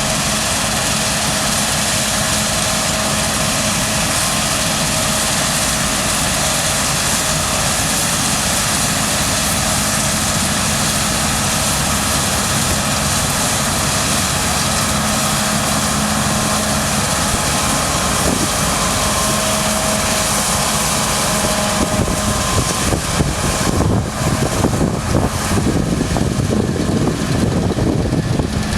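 Claas Lexion 7600 combine harvester running while cutting beans: a steady mechanical drone with a broad hiss and a held hum. About three-quarters of the way through, the hiss fades and a rougher, uneven low rumble takes over.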